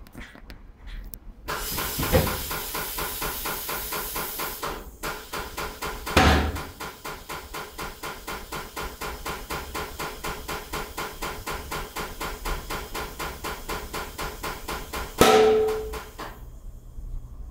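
Tyre changer at work on a wheel: a long hiss of air that settles into a rapid, even pulsing. There are loud knocks about two and six seconds in, and a sharp one near the end just before it stops.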